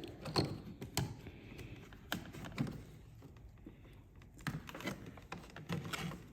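Irregular sharp clicks and taps from hands working a snowmobile's wiring clips and plastic trim, a dozen or so knocks spread unevenly, with a cluster a little past the middle.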